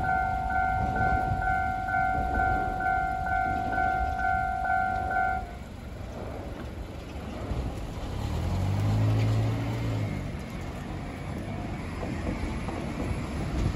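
Japanese railway-crossing alarm ringing its repeated electronic bell tone, which stops about five and a half seconds in. Then low street traffic noise, with a vehicle engine passing a few seconds later.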